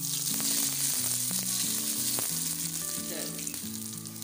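Hot tadka oil with cumin seeds, garlic and dried red chillies poured onto cooked saag, sizzling hard as it hits the greens and dying down over the next few seconds.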